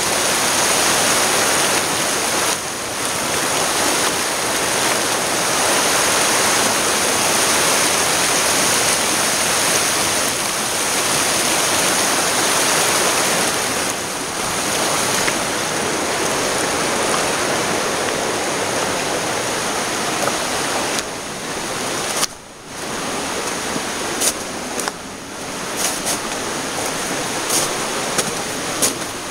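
Creek rapids rushing steadily over boulders, a dense, loud wash of white water. About three quarters in the sound dips briefly, then a few sharp clicks come through over the water.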